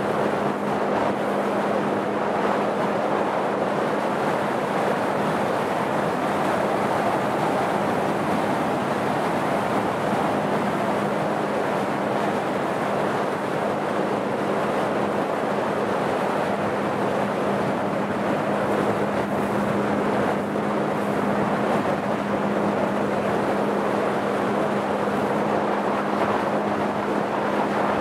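Motorboat running steadily at cruising speed, its engine a constant low hum under the rush of water along the hull and wind on the microphone.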